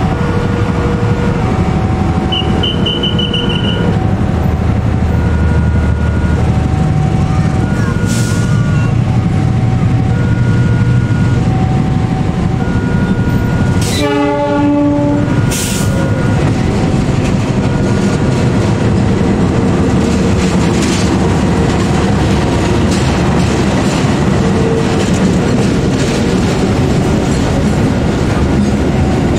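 KAI diesel-electric locomotive running slowly while hauling container flatcars, with one short horn blast about halfway through and a brief hiss of air just after, and wagon wheels clattering later on. Throughout, a level-crossing warning alarm sounds, alternating a high and a low tone about once a second.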